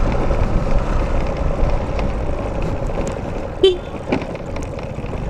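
Scooter engine running steadily on the move through traffic, with road rumble. A short vehicle horn toot sounds about three and a half seconds in.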